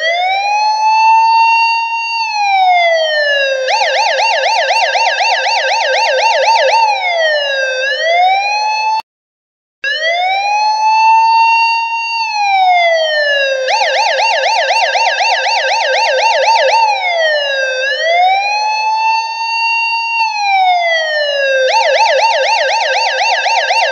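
Electronic police car siren, loud, cycling between a slow wail that rises, holds and falls and a rapid yelp. It breaks off briefly about nine seconds in, then starts the same cycle again.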